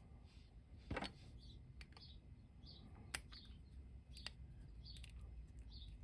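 Near silence with a few faint sharp clicks, about a second in and again around three and four seconds: the small plastic action figure being handled after reassembly. Faint short high chirps recur in the background.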